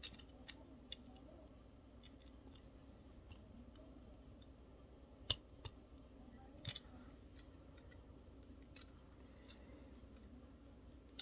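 Sparse, faint clicks of small plastic parts of a Transformers Core Class Bumblebee figure being handled and pegged together, the sharpest about five seconds in, over quiet room tone.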